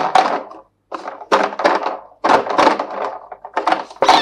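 Thin clear plastic bottle being handled and squeezed in the hands: a run of short, irregular crackles and knocks.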